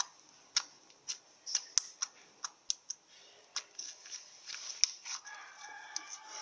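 Slime being squeezed and stretched by hand, giving off irregular sharp clicks and pops. A faint drawn-out call, which sounds like a rooster crowing in the background, comes in near the end.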